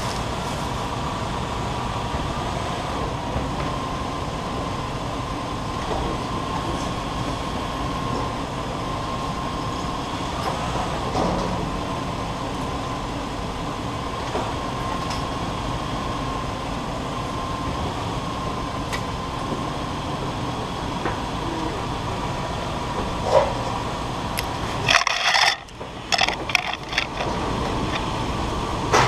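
Toyota Land Cruiser 100 series engine idling steadily, heard from under the front of the vehicle, with only a faint soft thump or two and no heavy driveline clunk. Near the end the camera is handled and moved, giving a burst of knocks and rustling.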